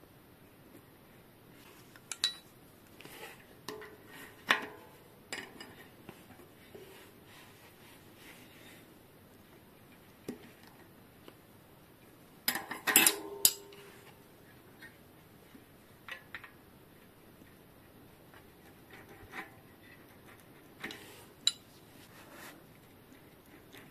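Metal tools and bicycle hub parts clinking and tapping against each other during hub work: scattered light clicks, with a louder run of clinks about halfway through.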